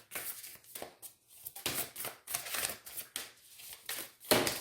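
A deck of oracle cards being shuffled and handled: a quick, irregular run of card snaps and rustles, with a louder rustle near the end.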